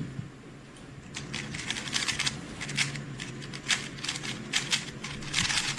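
3x3 speedcube being turned very fast: a dense, rapid run of plastic clicks and clacks that starts about a second in.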